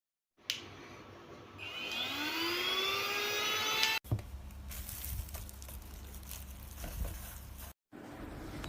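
A click, then the small motor of a JAMAY mini cordless handheld vacuum cleaner whining up in pitch as it spins up to speed and steadies. The sound cuts off abruptly about four seconds in and is followed by a quieter low hum with a few knocks.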